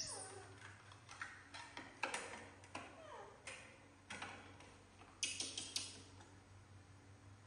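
Light clicks and knocks of plastic plates and grilled rice cakes being set down and shifted on a small wooden tabletop, irregular, with a quick run of clicks about five seconds in.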